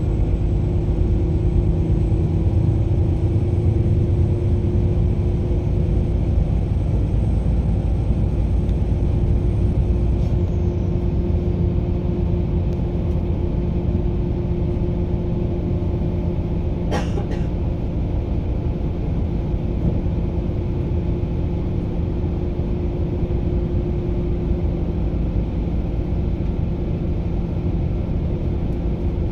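Steady low rumble of a moving vehicle with a held hum. A faint high whine fades out about ten seconds in, and there is a single sharp click a few seconds later.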